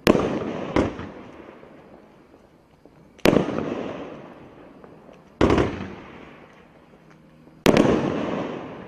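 Flashing Fireworks FF1010 Tsunami consumer aerial firework going off. Four sharp bangs come two to three seconds apart, with a smaller one just after the first, and each bang trails off over a second or two.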